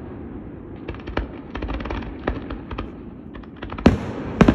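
Fireworks going off: a string of quick crackling pops, then a run of louder, sharper bangs near the end.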